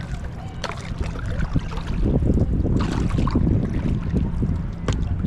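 Wind buffeting the microphone at the lakeshore, with water sounds underneath. There are sharp clicks about a second in and near the end.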